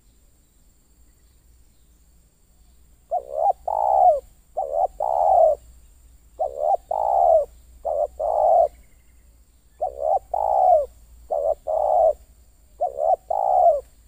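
Spotted dove cooing: seven two-part coos, each a short note followed by a longer rolling one, beginning about three seconds in and repeating roughly every second and a half.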